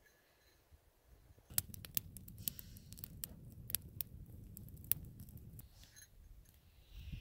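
Campfire of dry sticks burning, with many sharp, irregular crackles and pops over a low rumble of flame, starting about a second and a half in.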